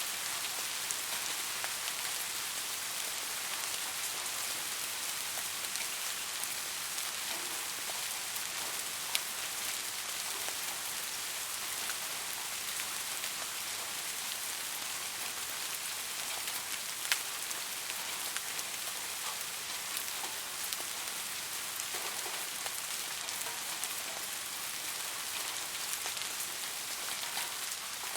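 Steady rain falling on a surface: a dense even hiss of many small drop hits, with an occasional sharper, louder drop.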